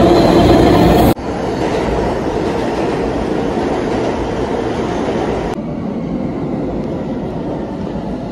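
Steady rolling noise of a train running, cut off abruptly about a second in and resuming quieter, with the high hiss dropping away about halfway through.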